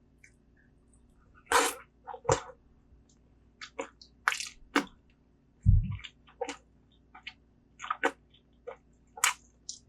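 Close-miked eating sounds: irregular wet smacks and clicks of chewing, with one low thud a little past halfway.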